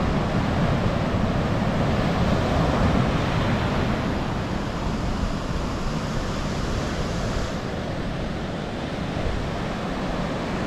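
Ocean surf breaking and washing up the beach in a steady rush, with wind buffeting the microphone and adding a low rumble.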